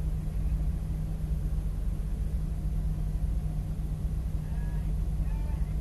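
A 2019 Mazda Miata MX-5's 2.0-litre four-cylinder idling steadily while the car stands still, heard from inside the car as an even low rumble.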